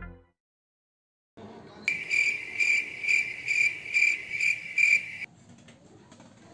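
Cricket chirping: a high, pulsing chirp repeating about twice a second over a faint hiss, starting about two seconds in and cutting off abruptly near the end.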